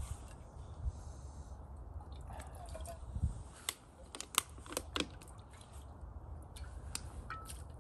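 Dry leaf litter crackling and small clicks as camping cookware is handled, most of them between about three and a half and five seconds in. A low wind rumble on the microphone runs underneath.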